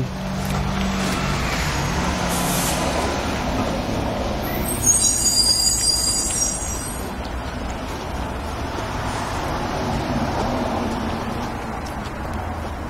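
A heavy vehicle passing, a steady noise with a high-pitched brake squeal that lasts about two seconds, starting about five seconds in.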